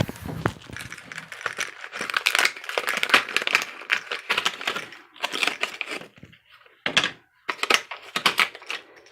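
Plastic being handled: crinkling with a fast, irregular run of small clicks and taps, pausing briefly a few times about five to seven seconds in.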